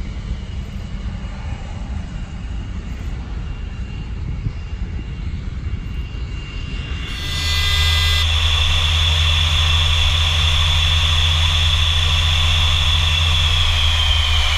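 Wind rumble on the microphone with a faint high whine. About seven seconds in, the sound changes to the cockpit of an English Electric Lightning taxiing, where its twin Rolls-Royce Avon turbojets give a loud steady low drone under a strong high whine. The whine falls slightly in pitch near the end.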